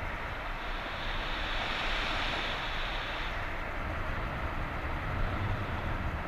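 Wind rushing over the microphone in flight: a steady low buffeting rumble with a hiss that swells for a few seconds about a second in.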